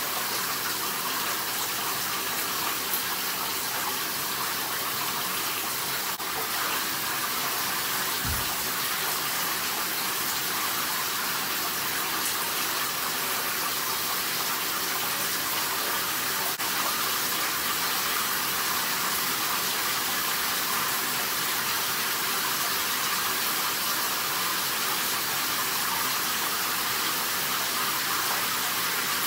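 Shower water running steadily, an even hiss of spray.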